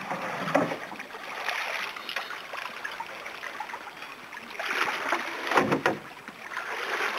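Shallow river water rushing over stones, with splashes from someone wading through it, heaviest about five seconds in.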